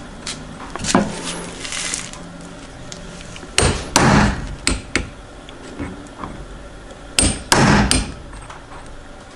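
Hammer blows setting the soft lead weight of a plastic cage fishing feeder seated on a steel socket, flaring its lead skirt to lock it in place. One light tap, then two bunches of three or four sharp strikes a few seconds apart.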